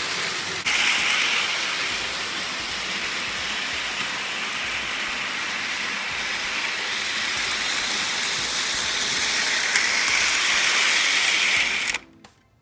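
Electric model train running on its track: a steady, noisy mechanical rattle of the motor gearing and wheels on the rails. It cuts off suddenly near the end.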